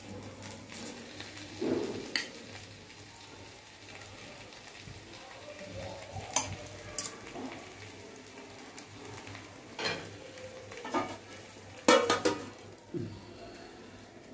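Metal serving spoon scraping and clinking against a stainless steel kadai while potato fry is dished out: scattered clinks, the loudest cluster about twelve seconds in, over a faint steady hum.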